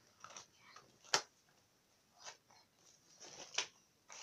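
Faint rustling and handling noises as makeup is applied, with one sharp click a little over a second in.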